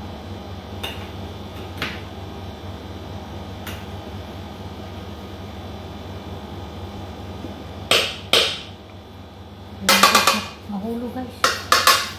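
A metal spoon knocks and clatters against an aluminium cooking pot: two sharp knocks about eight seconds in, then a burst of clattering near the end, over a steady low hum.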